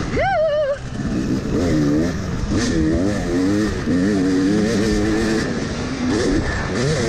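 Yamaha YZ250 two-stroke dirt bike engine being ridden hard: it revs up sharply just after the start, then its pitch rises and falls over and over as the throttle is worked.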